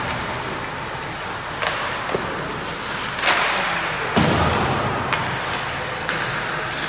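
Ice hockey play: a series of sharp clacks and thuds from sticks, puck and the rink boards over a steady arena hum, the loudest two about three and four seconds in, the second a heavy thud.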